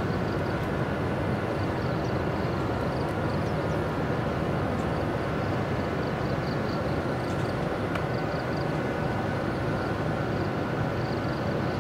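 Steady low drone of a 45-ton electric locomotive running slowly through the rail yard, with no separate clanks or bangs. A faint high chirping pulses over it.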